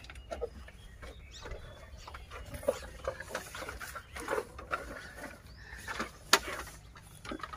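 Elephants feeding from a bamboo bed: scattered crunches, rustles and knocks as their trunks pick up cucumbers and sugarcane and they eat, with one sharp crack about six seconds in.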